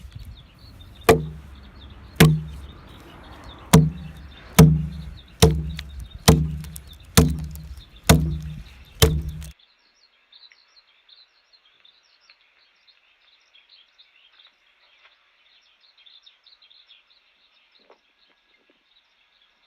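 Non-iron adze chopping into a China fir log to hollow a dugout canoe hull: about nine sharp wooden strikes, roughly one a second, that stop about halfway through. Faint high chirps follow.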